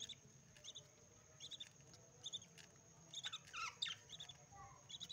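Budgerigars calling softly: short high chirps repeating at a steady pace, a little more than one a second, with a few falling squeaky calls just past the middle.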